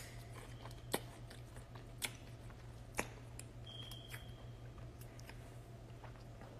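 A person biting and chewing a pickle close to the microphone: sharp crunches about a second apart, roughly one, two and three seconds in, over a steady low hum.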